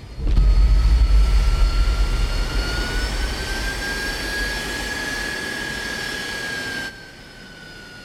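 Jet airliner engines running loud: a deep rumble that eases off over a few seconds, under a high whine that rises slightly in pitch and then holds. It cuts off abruptly near the end.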